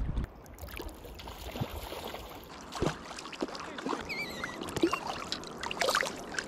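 Shallow river water trickling and splashing around hands as a hooked coho salmon is handled and unhooked at the water's edge, with a few sharp splashes about three, five and six seconds in.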